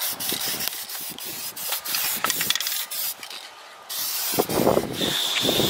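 Aerosol can of black spray paint hissing in many short spurts as it coats a steel truck wheel, stopping briefly about three seconds in.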